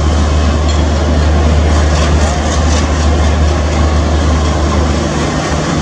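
WDM3A diesel-electric locomotive's ALCO engine running under load as it hauls a train past, a loud steady low drone over the rumble of the coaches on the rails.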